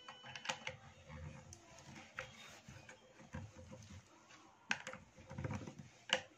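Scattered light clicks and taps of a screwdriver tip and fingers against the metal and plastic housing of an Ametek two-stage vacuum motor, working at the carbon brush holder. The motor is not running.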